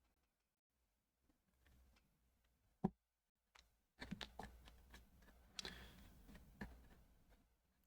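Mostly faint near silence broken by small handling clicks of a phone and tools on a workbench: one sharp click about three seconds in, then a run of light clicks and rustling from about four seconds in.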